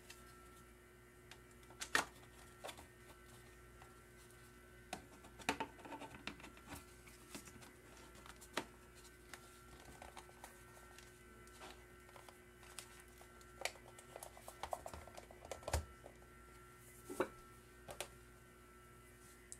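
Light, scattered clicks and knocks of a plastic kitchen-scale housing being fitted together, pressed and turned over, a dozen or so taps spread throughout, over a faint steady hum.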